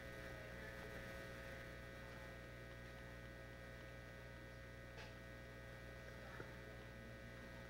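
Steady low electrical mains hum from the sound system, with a couple of faint clicks.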